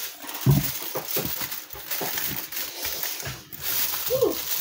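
Kitchen foil crinkling as it is handled and pressed over a baking dish of lasagne, with a few soft thumps in the first second or so.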